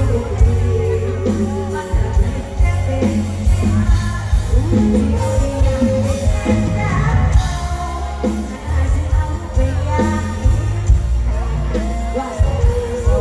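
Live Thai luk thung band music played loud through a concert PA, with heavy bass and a woman singing the melody over it.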